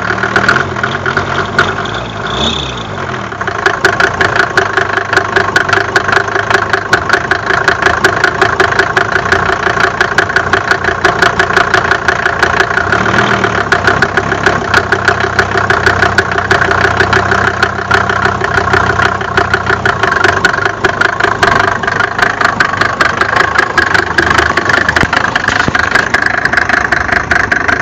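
Mercedes-Benz OM605 five-cylinder diesel engine running, with a rapid, steady knocking throughout. The engine note dips and shifts briefly about two seconds in.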